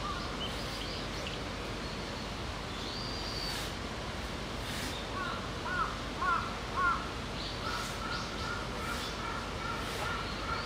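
A crow caws three times in quick succession about six seconds in, followed by a run of short repeated bird notes, over steady outdoor background noise.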